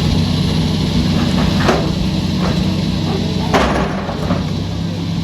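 A heavy machine's engine running steadily under a few sharp knocks of demolition work, the loudest about three and a half seconds in.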